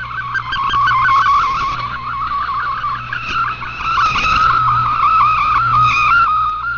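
Shortwave digital-mode data signal received over a radio: a fast warbling sequence of hopping tones, multi-tone frequency-shift keying, over a hiss of background noise and a low hum.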